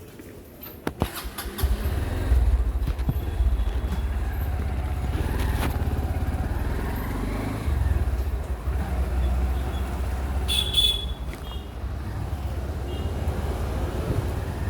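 A motor vehicle running with a steady low rumble that starts about two seconds in. A few clicks come before it, and a brief high tone sounds near the end.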